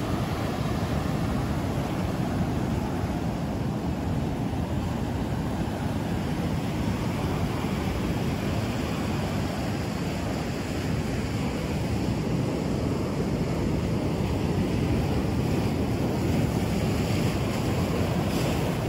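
Ocean surf on a sandy beach: a steady rush of breaking and washing waves, swelling slightly near the end.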